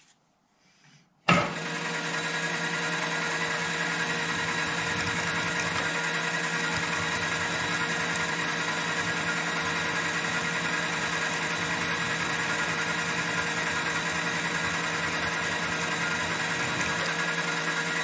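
Milling machine spindle motor switching on about a second in with a sharp start, then running steadily while a 10 mm twist drill is fed down into a metal tab.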